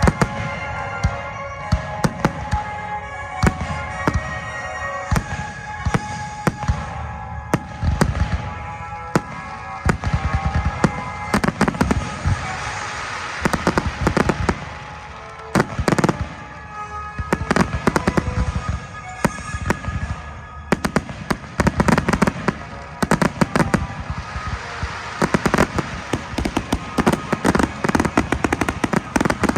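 Fireworks display with aerial shells bursting in quick succession, booms mixed with crackling. Music plays underneath through roughly the first half. The bursts come thicker and faster in the second half.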